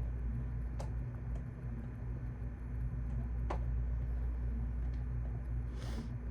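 Office room tone: a steady low hum with a few isolated sharp clicks spread through it and a brief hiss near the end.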